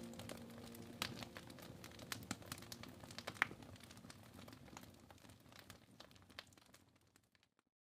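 Wood fire crackling in a fireplace, with irregular sharp pops and snaps, fading away to near silence near the end.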